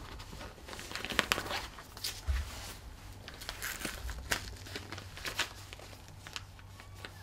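Fabric blood pressure cuff being wrapped around an upper arm and fastened: rustling of the cuff with scattered short crackles as its hook-and-loop closure is pressed shut.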